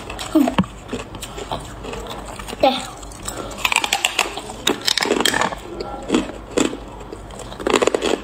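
A mouthful of clear hard ice being bitten and crunched between the teeth: a run of sharp cracks and crunches, densest from about three and a half seconds in, with another quick cluster near the end.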